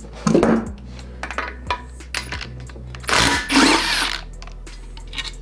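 Cordless drill with a socket on a long extension running for about a second, near the end, to undo a bolt on the oil filter housing of a Toyota 1KZ engine block. Before it come a few light clinks and knocks of metal tools.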